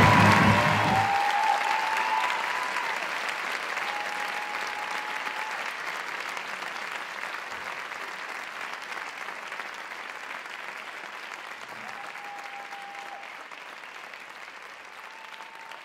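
Theatre audience applauding at a curtain call, the music stopping about a second in; the applause then fades slowly away.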